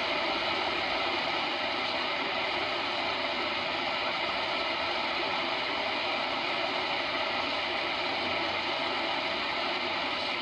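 Steady shortwave hiss and static from a Tecsun H-501X receiver in AM mode as it is tuned across empty frequencies of the 22-metre band, with no station coming through.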